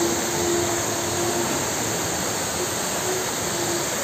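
Waterfall cascading down a rock face: a steady, even rush of falling water, with a faint low tone coming and going underneath.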